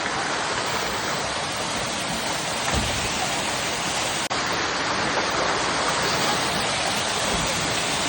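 Steady rush of water from a waterfall pouring into a rock pool.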